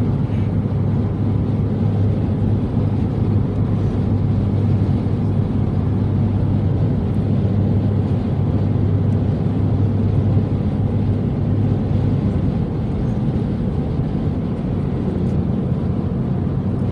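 Steady drone of a moving road vehicle heard from inside the cabin: a low engine and road hum at constant cruising speed.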